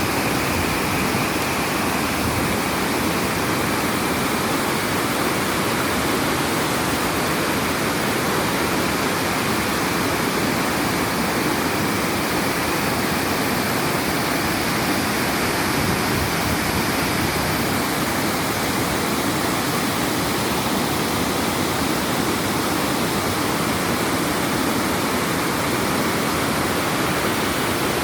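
River water rushing, a steady, unbroken noise.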